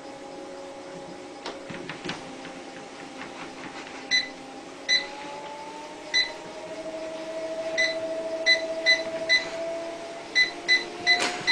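Electric treadmill running with a steady motor whine, while its control panel beeps about ten times in short runs from about four seconds in; the motor's pitch rises as the belt speed is stepped up.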